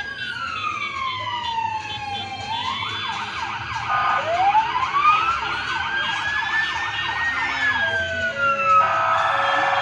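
Vehicle sirens sounding in a slow wail that falls, then rises and falls again, with a second, faster yelping siren overlapping it about three seconds in. Near the end a rapid warble takes over.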